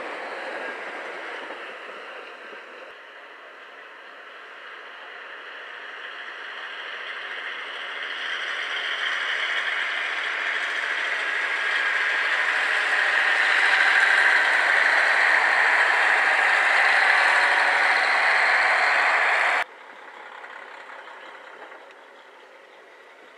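Trains passing close by on the line: the running noise of wheels on rail and engines swells as a green-striped diesel railcar goes past, then cuts off abruptly a few seconds before the end, leaving a much quieter passing train.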